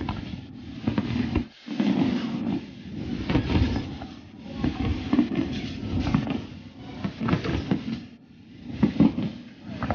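Aerial fireworks shells bursting overhead: repeated booms and crackling that swell and fade about every second or two.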